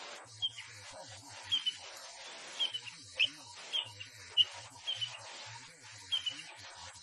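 Birds chirping: short high chirps repeating about once or twice a second, the loudest about four seconds in.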